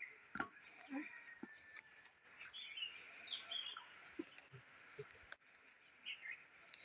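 Faint outdoor ambience: a steady high hiss with birds chirping in short bursts, a few times in the middle and again near the end, and scattered light clicks.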